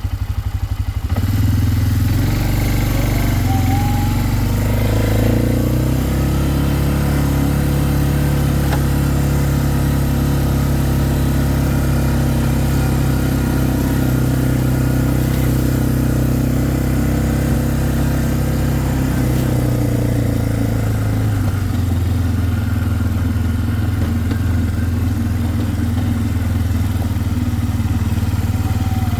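Vehicle engine running as it drives along a rough mountain track. The engine picks up about a second in, pulls harder around five seconds, and eases off near twenty seconds.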